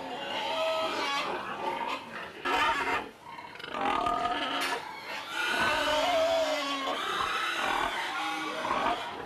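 Sows in a pen squealing and grunting, one call overlapping the next, with a short lull about three seconds in.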